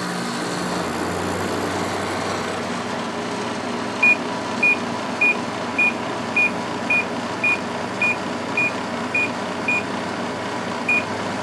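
Samsung 6,300 BTU window air conditioner running, its compressor coming on about a second in with a low hum under the steady fan noise. From about four seconds in, the unit's control panel gives about a dozen short, high beeps, close to two a second, as its buttons are pressed.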